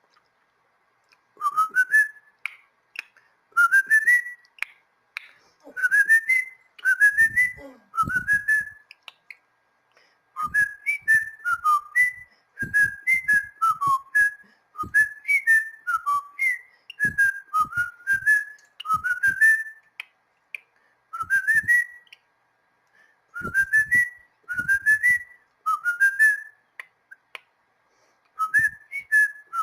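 Pet cockatiel whistling a song: phrases of short, quick rising whistle notes, several a second, with brief pauses between the phrases.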